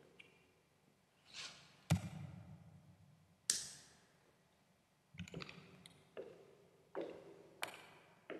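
A series of sharp knocks and taps, about eight of them at irregular gaps, each with a short ringing tail.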